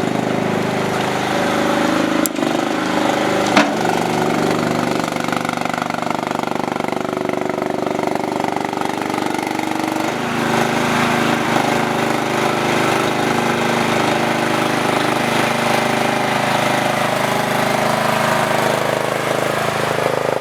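Small skid steer loader's engine running steadily, its note shifting about halfway through, with two sharp clanks a few seconds in.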